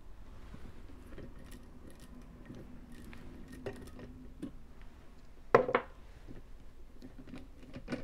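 Small metallic clicks and taps as a tubular lock pick and a clear acrylic practice tubular lock are handled in a vise. There is one louder sharp knock about five and a half seconds in and another light knock near the end.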